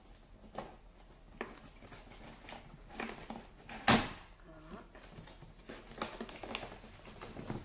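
Cardboard box flaps being pulled open and handled: scattered scrapes and taps, with one loud, sharp knock about four seconds in.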